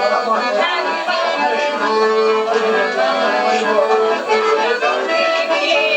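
Bayan (Russian button accordion) playing a tune in steady, sustained chords.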